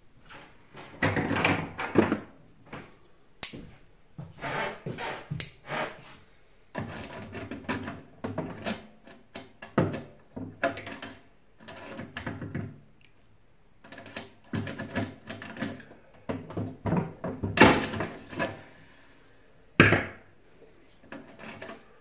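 Irregular clicks, knocks and metallic rattles from hands and pliers working at the wiring and sheet-metal housing of a stripped-down microwave oven, with two sharper knocks near the end.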